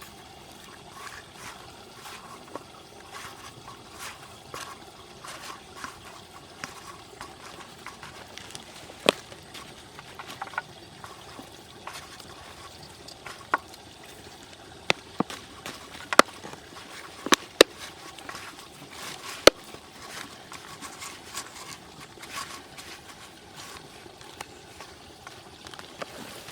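Water trickling and sloshing, with a handful of sharp clicks or knocks, most of them between about nine and twenty seconds in.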